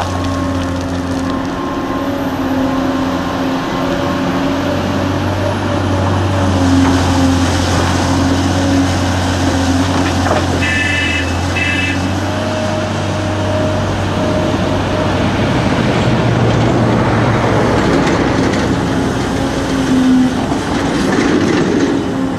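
Heavy Caterpillar diesel engines of a 385C excavator and a 769D dump truck running steadily under working load, the engine note shifting a little in pitch. About ten seconds in there is a short burst of high beeping.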